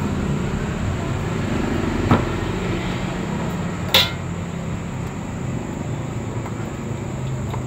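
Two sharp metal clanks of cooking utensils against a wok, one about two seconds in and a louder one near four seconds, over a steady low hum.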